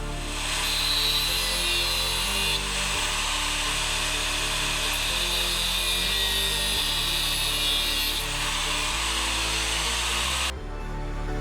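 A power tool cutting steel exhaust pipe: a steady, high-pitched cutting noise from the pie cuts that re-angle the downpipe. It cuts off suddenly about ten and a half seconds in, with background music underneath throughout.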